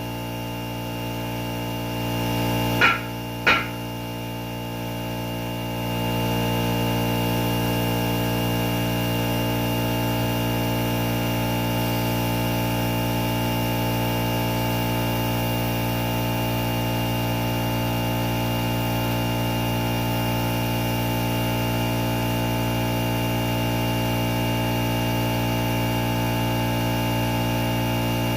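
Air compressor motor running with a steady hum that gets louder about six seconds in, with two sharp metallic knocks about three seconds in.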